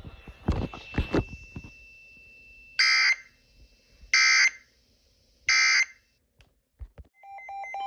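Three short bursts of screechy digital data tones from an Emergency Alert System broadcast, about a second and a half apart: the end-of-message code that closes a weather warning. Near the end a series of stepped beeping tones begins.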